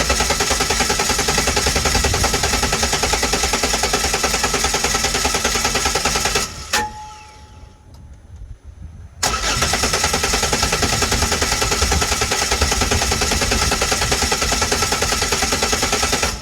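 2006 Chevrolet Impala engine being cranked by the starter after a shot of ether, turning over in an even rhythm without starting: two long cranking bursts with a pause of a few seconds between them.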